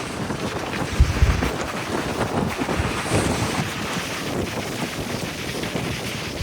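Strong wind buffeting the microphone, with a heavy gust about a second in, over a steady rush of surf.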